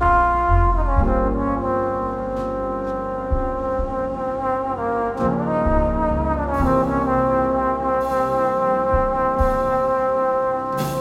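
Background music led by brass: held notes that glide slowly from one pitch to the next over a low bass.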